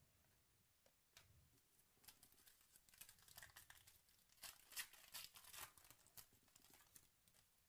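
Foil trading-card pack wrapper being torn open and crinkled by hand: a quiet run of crackles and rips, densest and loudest about halfway through.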